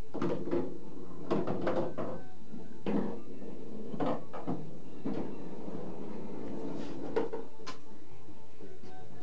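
Pool cue striking and billiard balls clacking: a dozen or so sharp, separate clicks and knocks spread over several seconds, thickest in the first two seconds and thinning out after.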